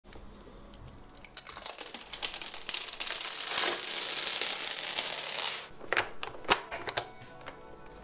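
Clear protective plastic film being peeled off the glossy lid of a robot vacuum, crackling for a few seconds, then a few sharp clicks and crinkles near the end.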